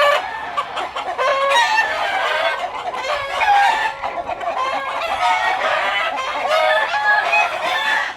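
Gamefowl chickens clucking and calling over one another, with rooster crowing among the calls.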